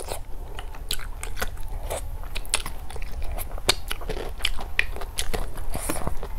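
Close-miked chewing and biting of food, with many irregular sharp wet mouth clicks and crunches.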